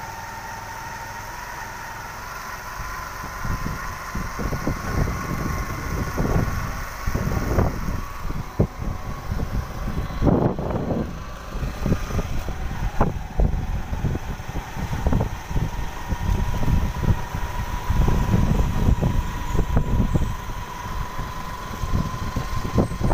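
Motorcycle riding along a road, its engine running with a steady whine. Gusty low rumble of wind on the microphone grows after the first few seconds.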